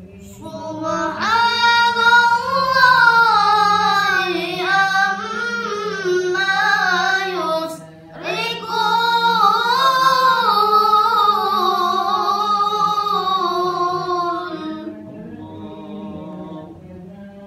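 A child qari reciting the Quran in melodic tilawah style: two long, ornamented, drawn-out phrases with a short breath between them, about halfway through.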